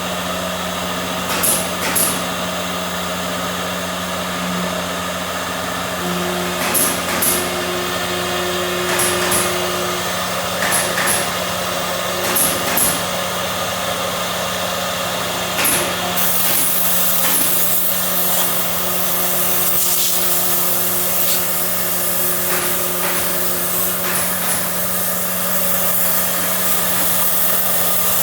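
CNC machine running, a steady motor hum and whine with short hissing bursts every second or two; about halfway through a continuous rough hiss joins in, like a cutter working material.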